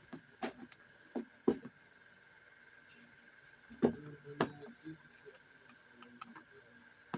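A few scattered knocks and taps at irregular intervals, the loudest around a second and a half in and near four seconds in, over a faint steady high-pitched hum.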